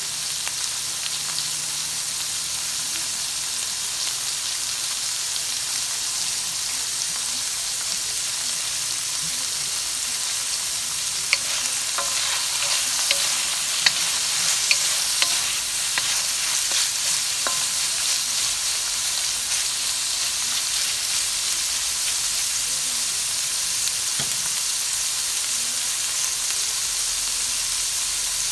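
Cut asparagus sizzling steadily in hot oil in a wok. Partway through, a wooden spatula stirs and tosses it, with several sharp clacks and scrapes against the pan.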